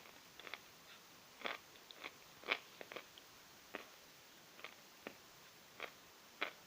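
A person chewing pieces of chalk: an irregular series of faint, crisp crunches, roughly one or two a second.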